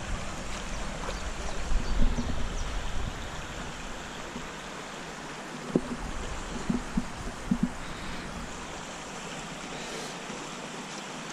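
Water of a small, shallow stream running over stones, a steady rushing hiss. It has a low rumble over the first few seconds, and a few short knocks come just past the middle.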